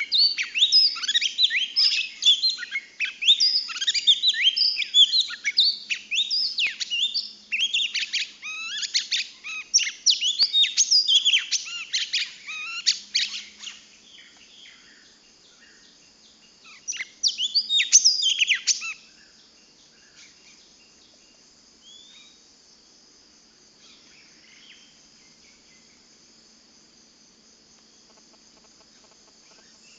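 A female murai cacing songbird singing a rapid, varied string of sharp chirps and sweeping whistles, then pausing, giving one short loud burst a few seconds later and falling silent. After that only a faint, steady high insect drone remains.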